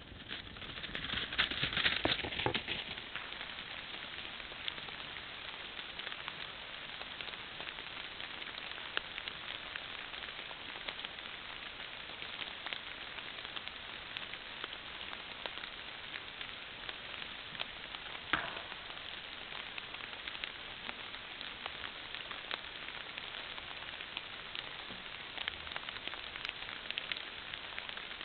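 Mouflon hooves rustling and crackling through dry fallen leaves, loudest in the first couple of seconds as a ram runs across them, then fainter scattered crackles over a steady hiss. One sharp click comes about two-thirds of the way through.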